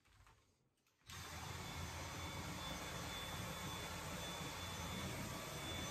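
Dyson cordless handheld vacuum cleaner switching on about a second in and running steadily: an even rushing motor-and-airflow noise with a faint thin high whine.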